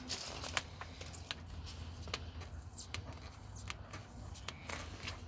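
Vinyl advertising decal being peeled by hand off a car's painted door panel: irregular small crackles and ticks as fingernails pick at the edge and the adhesive lets go, over a faint low hum.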